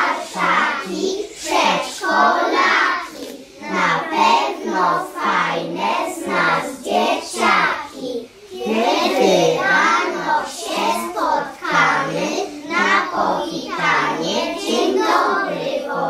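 A group of young children singing together in unison, their voices rising and falling in a steady, regular rhythm.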